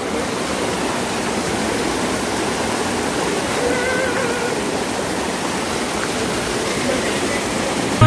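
Steady rushing of a small mountain waterfall and stream cascading over boulders.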